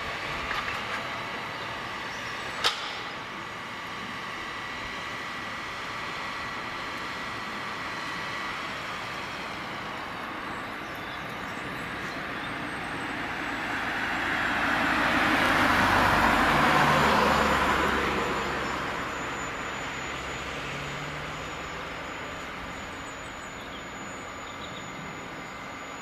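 John Deere 1470E forest harvester running, its engine and hydraulics making a steady hum, with one sharp crack about three seconds in. Around the middle a louder rush swells up over several seconds and fades away again.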